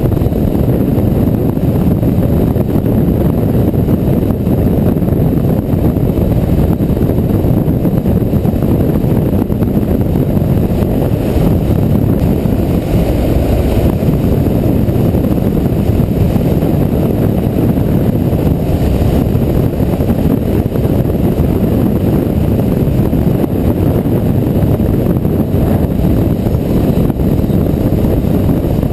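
BMW F650GS motorcycle riding at steady road speed: a constant rumble of wind buffeting the bike-mounted microphone over the engine.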